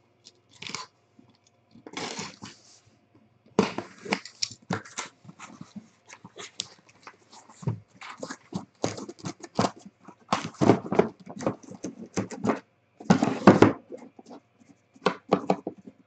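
A cardboard shipping case being unpacked by hand: a box cutter slitting the tape, the cardboard flaps scraping and bending back, and shrink-wrapped boxes sliding out. It comes as a run of irregular scrapes, rustles and knocks, in a few louder clusters in the second half.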